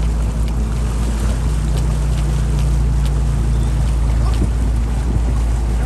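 Motorboat engine running steadily underway, a low hum, with water rushing past the hull and wind buffeting the microphone.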